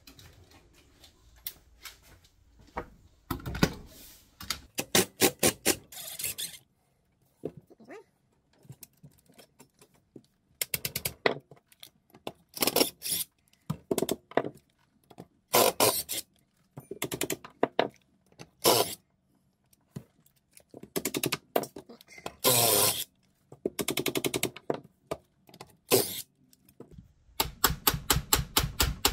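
Cordless impact driver backing out the steel screws of a gearbox cover, in about a dozen short bursts of rapid rattling hammering with pauses between them.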